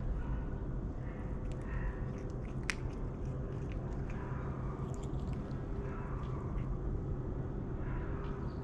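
A cat eating, chewing food picked off the ground with small scattered crunches, over a steady low hum.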